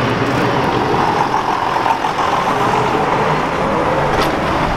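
John Deere tractor's diesel engine running as the tractor drives slowly past close by: a steady engine drone with a whine that rises and then falls in pitch as it goes by.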